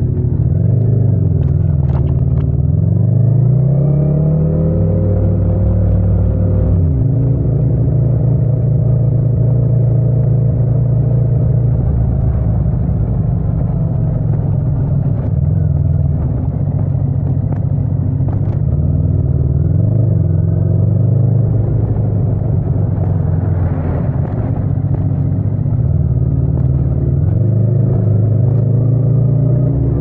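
Yamaha MT-07's parallel-twin engine pulling away from a stop: it revs up in first gear and drops in pitch at the shift to second about seven seconds in, then runs at low speed with the revs rising again twice under throttle.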